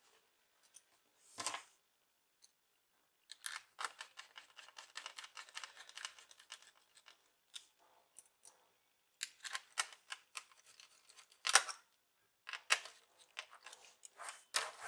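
Small clicks and scrapes of a laptop hard disk and its plastic and metal fittings being handled and set back into the HP 15 series laptop's case: a few seconds of rapid fine clicking, then scattered single sharper clicks.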